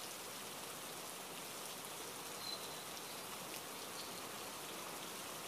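Steady, even hiss of background noise with a few faint ticks, unchanging throughout.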